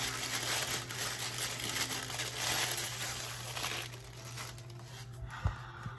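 Paper wrapping crinkling and rustling as it is handled, busiest over the first three and a half seconds or so, then quieter.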